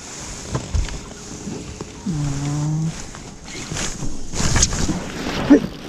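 Wind on the microphone and water noise around a small fishing boat. About two seconds in comes a short low steady hum, and the noise swells louder near the end.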